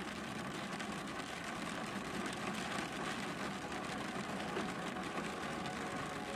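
Steady hum and hiss of a car interior in the rain, the engine idling: the ambient opening of an electronic music track, before the beat comes in.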